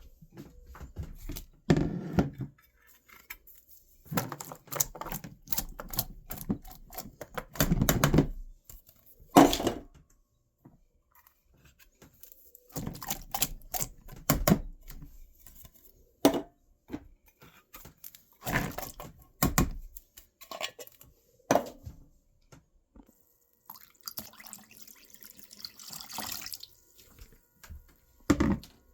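Intermittent kitchen handling noises: knocks and clatters of cookware and utensils in short bursts with quiet gaps, and a stretch of water-like hiss about three-quarters of the way through.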